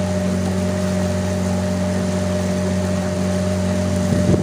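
Small boat's outboard motor running at a steady cruising speed, one even engine note, with a short bump near the end.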